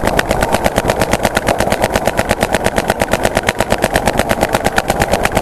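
Paintball marker firing a rapid, steady string of shots, about a dozen a second, which stops near the end.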